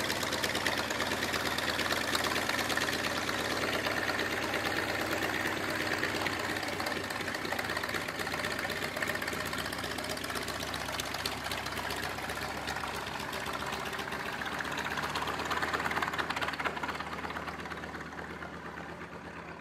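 Grumman Wildcat fighter's radial engine running at taxi power as it rolls past: a steady, rapid uneven pulsing with propeller noise. It swells briefly near the end, then fades as the plane moves away.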